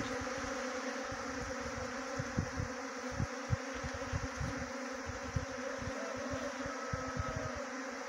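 A honey bee swarm buzzing in a steady drone as it crowds into and around the entrance of a wooden bee box. A few soft low bumps are heard now and then.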